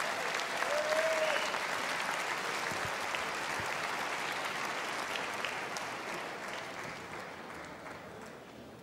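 Arena crowd applauding, the clapping slowly dying away over the last few seconds.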